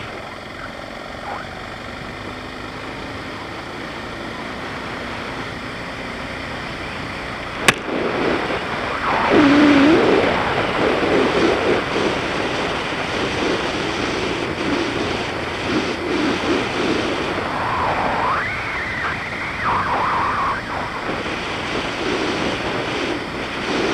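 BMW G650GS single-cylinder motorcycle engine under way, its pitch rising and falling as it revs through the gears, over steady wind rush on the microphone. A single sharp click comes near eight seconds in, and the engine grows louder from about nine seconds.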